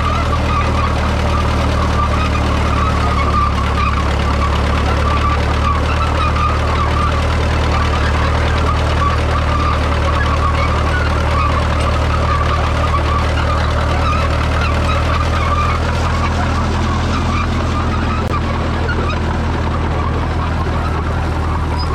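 1937 Allis-Chalmers M crawler's 4.9-litre four-cylinder petrol/TVO engine running steadily under load as the crawler tows a two-furrow trailed plough through the ground.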